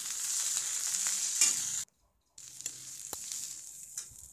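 Green chillies, onions and mint leaves sizzling in hot oil in a kadhai, with a steel spoon stirring and scraping through them. The sound cuts out for about half a second near the middle, then the sizzling comes back quieter, with a few sharp spoon clicks against the pan.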